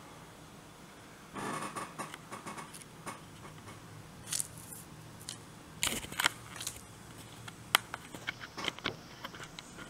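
Crumpled paper receipt rustling and crinkling as it is handled and flattened by hand: irregular crackles and sharp clicks, starting about a second and a half in.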